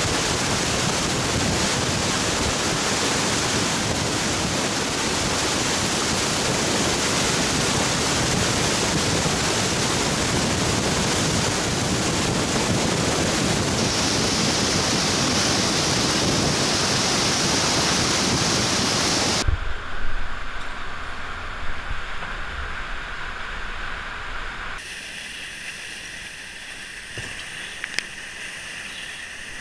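Heavy-flow waterfall: a loud, steady roar of falling water close by. About two-thirds of the way through it suddenly drops to a quieter rush of water.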